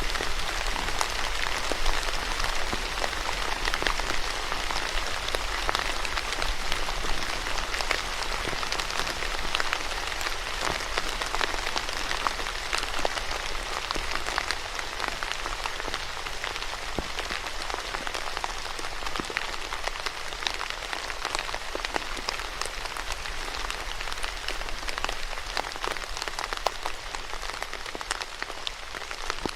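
Steady rain falling on a surface, a dense even hiss dotted with many individual drop ticks.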